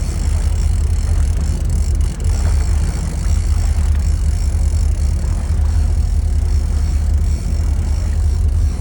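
Boat motor running steadily, a continuous low rumble with a faint hiss above it.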